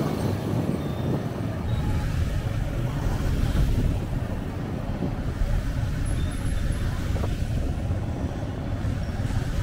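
Steady low rumble of road traffic, with wind noise on the microphone.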